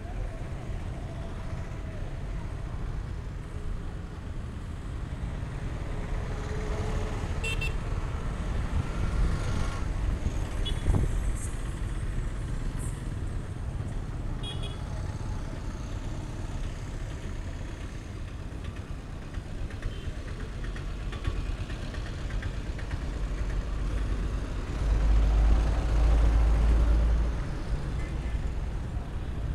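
Street traffic ambience: tuk-tuk and motorcycle engines running and passing, with occasional short horn toots and a louder low rumble near the end.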